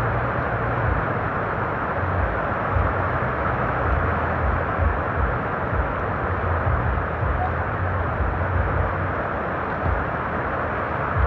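Strong wind buffeting the microphone: a steady rushing noise with irregular low rumbling gusts.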